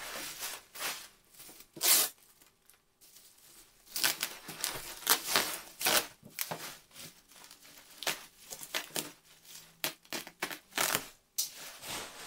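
Bubble wrap being pulled and torn away by hand, crinkling and tearing in irregular bursts with short pauses.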